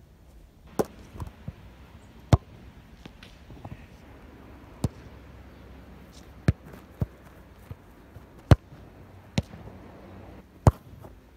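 A football being kicked and hitting the goalkeeper: about ten sharp, irregularly spaced thuds, the loudest a little over two seconds in, near eight and a half seconds and near the end.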